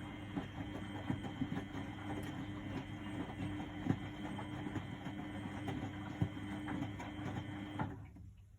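1999 Miele Novotronic W828 front-loading washing machine running its wash, with a steady motor hum and the crackle and slosh of the tumbling load, which stops suddenly near the end.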